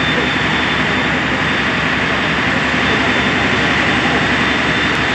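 A fire truck's engine running steadily, a loud even drone with a fast low pulsing underneath.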